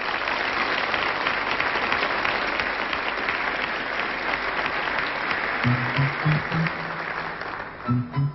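Theatre audience applauding, dying down near the end. About two-thirds through, the band comes in with a few low, spaced notes that open the song.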